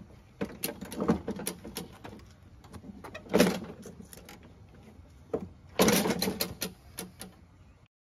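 Plastic lawnmower rear wheel knocking, clicking and rattling as it is worked by hand onto its axle shaft. The loudest knock comes about three and a half seconds in, and a cluster of rattles follows around six seconds.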